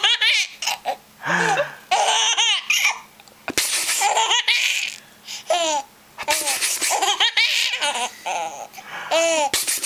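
Baby giggling and laughing in many short, high-pitched bursts with brief pauses between them.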